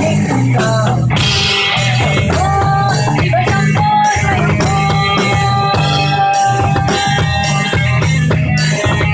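Rock band playing live in a small rehearsal room: drum kit with cymbal hits, bass guitar and electric guitar, over a melody of long held notes.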